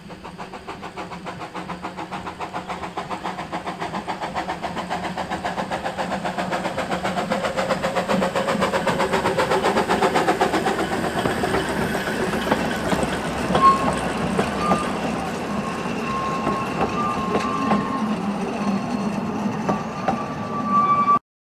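Narrow gauge steam locomotive working past with a passenger train: rapid, even chuffs grow louder as it approaches and passes. Then come the rumble and clicks of the coaches rolling by, with a sharp knock and short high squeals from the wheels in the second half.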